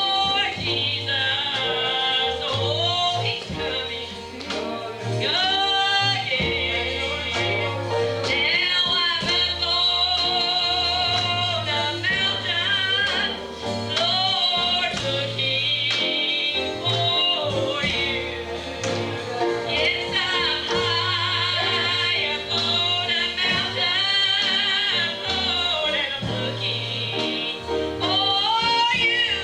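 Gospel singing with instrumental accompaniment and a bass line, the vocal line wavering and held on long notes.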